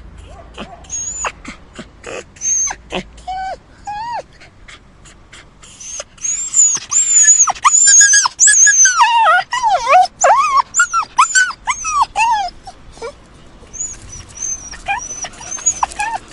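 A dog whimpering and crying. It starts with thin, high-pitched whines, then from about six seconds in gives a run of louder cries that rise and fall in pitch for several seconds, and goes back to high whines near the end.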